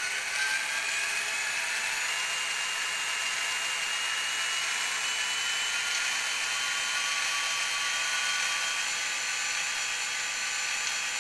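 Digitrax SDH164D sound decoder in a model locomotive, playing its recorded SD40-2 diesel (turbocharged EMD 645) engine revving up through the small onboard speaker: a thin, steady engine sound with a turbo whine that rises slowly in pitch.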